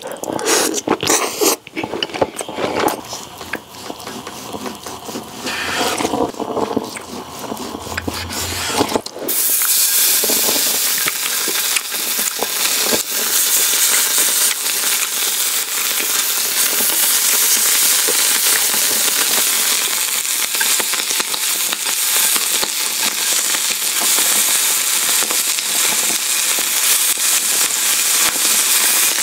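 Chewing and biting on grilled beef tongue for the first several seconds. Then, about nine seconds in, slices of raw beef tongue go onto a hot grill pan and sizzle and crackle steadily.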